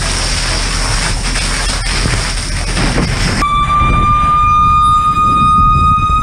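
Fire hose nozzle spraying water with a loud, even hiss that cuts off abruptly about three and a half seconds in. A steady high whistle takes over, slowly rising in pitch.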